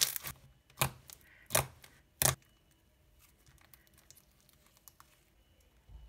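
Hands squeezing and pressing a soft, creamy foam-bead slime, giving four sharp crackling pops in the first two and a half seconds, then only faint small crackles.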